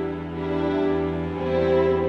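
Slow background music of long held notes, swelling gently in loudness.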